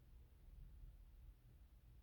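Near silence: room tone with only a faint, steady low rumble.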